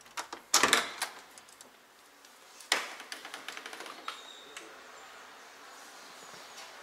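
A door's lever handle and latch clicking as the door is unlocked and opened: a cluster of sharp clicks about half a second in, then another loud click near three seconds followed by a run of light rattling clicks.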